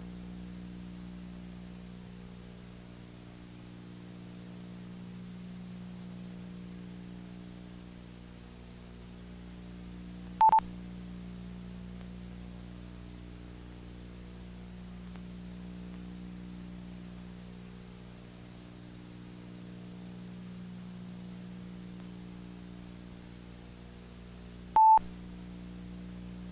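Steady low hum with faint hiss, broken twice by a short, loud beep, first about ten seconds in and again near the end.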